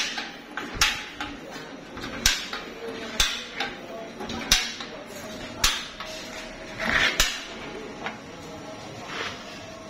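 Sharp snapping clicks of a stainless gas stove's automatic push-and-turn igniters as the burner knobs are turned, about one a second at uneven spacing, over the steady rush of burners already lit.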